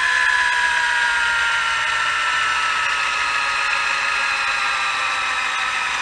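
Cordless drill boring through a distributor housing to open its clogged vent holes, running in one continuous whine. The pitch sinks slowly as its battery dies.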